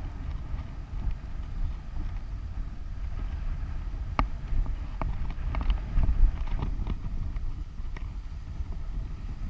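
Wind buffeting the action camera's microphone, with the sea washing against a rock ledge beneath it. A few sharp clicks come in the middle.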